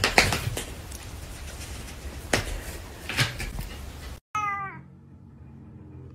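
A few sharp taps and knocks, the loudest right at the start and a couple of seconds in. About four seconds in, a cat gives one short meow that falls in pitch.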